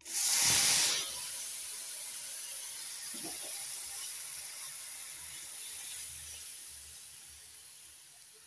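Ground spinach paste poured into hot oil in a kadhai: a loud hiss as it hits the oil for about a second, then a steady sizzle that slowly fades toward the end.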